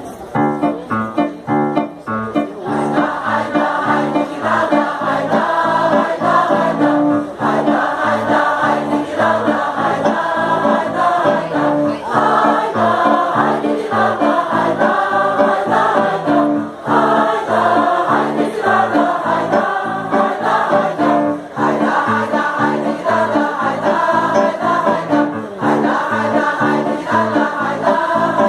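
Mixed choir of women and men singing together, coming in just after the start and carrying on with held chords.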